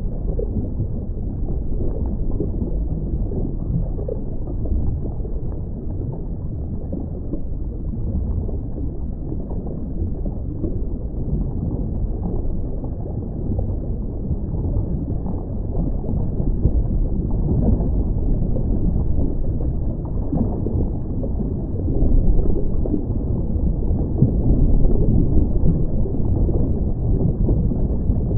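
Underwater sound picked up by a camera in its waterproof housing on a scuba dive: a steady, muffled low rumble of water with gurgling, a little louder for a few seconds about 22 seconds in.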